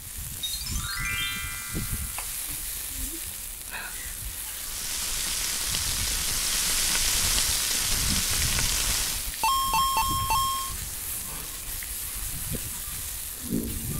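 Pork belly and onions sizzling on an electric grill plate, the sizzle swelling in the middle. A short rising chime sounds just after the start, and a few short electronic tones come about two-thirds of the way through.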